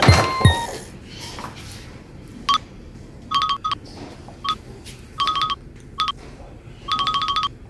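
Electronic beeping in short runs of quick, evenly pitched beeps: a single beep, then several brief bursts, then a longer rapid run near the end.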